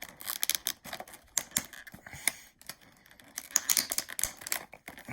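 A model airplane box and its packaging being handled and pulled apart: a quick, irregular run of clicks, crinkles and scrapes as a diecast model is worked out of its packaging.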